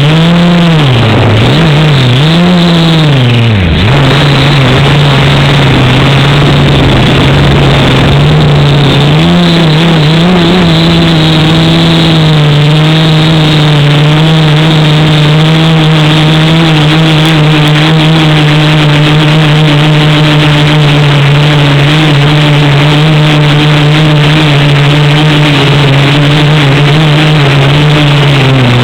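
Quadcopter's electric motors and propellers buzzing loudly. The pitch swoops up and down with the throttle for the first few seconds, then holds nearly steady.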